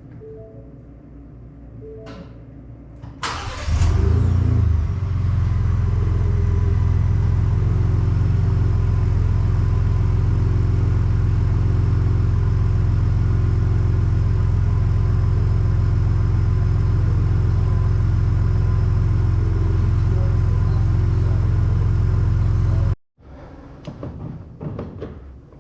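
2024 Ford Ranger Raptor's 3.0-litre twin-turbo V6 starting: a short crank and flare about three seconds in, then settling into a steady idle that cuts off suddenly near the end.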